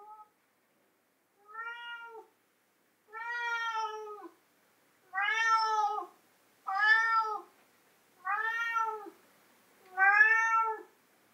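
Calico cat meowing repeatedly: about seven drawn-out meows in a row, each rising and then falling in pitch, spaced about a second and a half apart and getting louder as they go.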